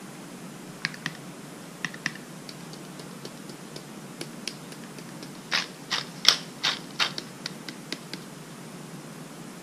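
A handheld spice jar clicking and rattling as it is shaken and turned over food: a few scattered light ticks, then a quicker run of louder clicks from about five and a half to eight seconds in.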